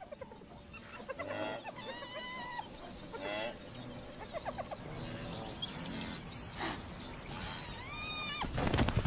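A series of high-pitched animal cries, each rising then falling in pitch, with the loudest pair about eight seconds in.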